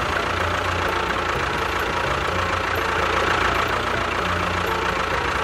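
A motor running steadily with a low, uneven chugging.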